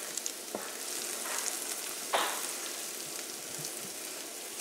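Diced onion and dried herbs sizzling in olive oil in a skillet over medium heat, being sautéed to caramelize. A wooden spoon stirs them, with a few short scrapes against the pan, the loudest about two seconds in.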